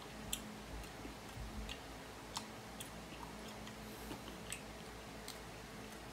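A person chewing a grape, faint wet mouth clicks scattered every half second or so.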